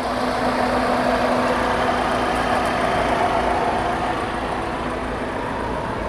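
Maruti Swift's 16-valve petrol engine idling steadily with the AC switched on and its newly replaced compressor running. There is no ticking or grinding from the compressor.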